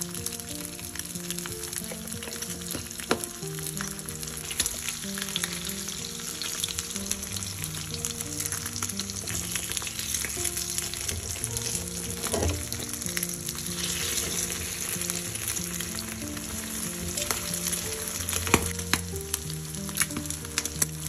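Eggs frying in a little oil in a four-hole non-stick egg pan: a steady crackling sizzle, with a few sharp clicks as the eggs are turned over. Background music plays underneath.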